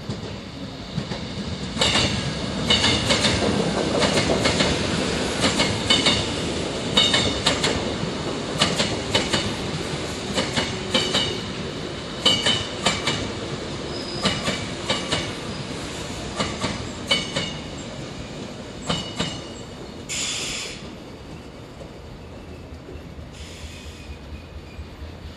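A Seoul Line 1 rheostat-control electric train runs past, its wheels clacking over rail joints in uneven groups of strikes. The clacking fades after about nineteen seconds, followed by a brief hiss.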